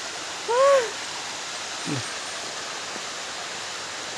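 Steady rushing of a waterfall, with a short rising-and-falling hoot-like vocal call about half a second in and a brief low falling sound about two seconds in.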